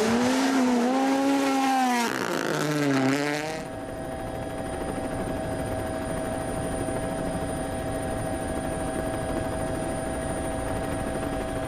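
A rally car's engine revving hard, its pitch climbing and dropping through gear changes, for about three and a half seconds; then a sudden cut to a steady, unchanging drone that holds at one pitch.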